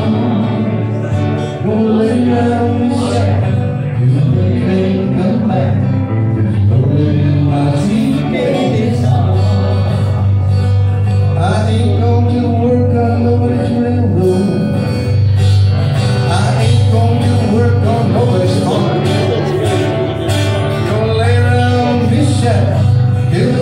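Live song played on strummed acoustic guitars, with a singing voice over them.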